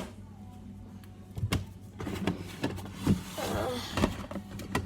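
Food packages being handled and moved on a fridge shelf right beside the recording phone: a run of knocks, clicks and plastic rustling, over a steady low hum.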